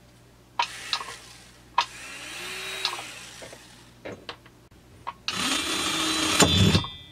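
Electric rotary tool with a burr, used to port a chainsaw cylinder, running up and winding down in two short runs, with clicks as it is handled. The second run is louder, with a harsh high hiss near its end.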